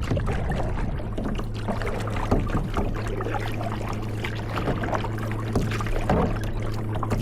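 Kayak paddle strokes in water, irregular splashing and dripping over a steady low hum.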